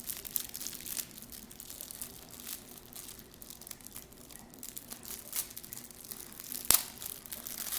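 Plastic packaging crinkling and tearing as a small toy package is handled and pulled open, with one sharp snap near the end.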